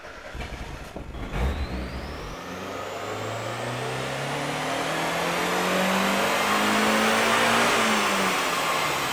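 Mazda MX-5 Mk1's 1.6-litre four-cylinder engine in a full-throttle power run on a rolling road, running its new ME221 ECU's base map. The revs climb steadily for several seconds with a rising high whine, then drop as the throttle is lifted near the end.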